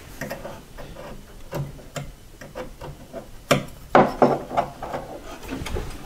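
Small clicks, taps and light rubbing as a hand tool is worked against a wooden dollhouse wall, with a few louder knocks about three and a half to four and a half seconds in.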